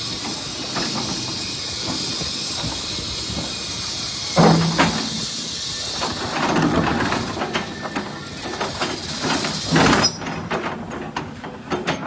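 Excavator bucket digging and scraping through earth and broken concrete rubble, with a loud scrape about four and a half seconds in, then continuous scraping and clattering of stones and many sharp knocks near the end. A steady hiss runs underneath and cuts off suddenly about ten seconds in.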